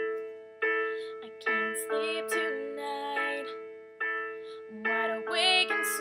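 Piano chords struck one after another and left to ring out, as the accompaniment for a pop ballad, with a woman's singing voice coming in over them partway through.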